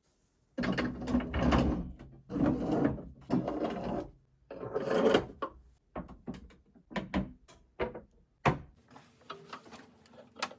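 Hard objects being handled: a few seconds of scraping and rattling, then a series of separate sharp clicks and knocks.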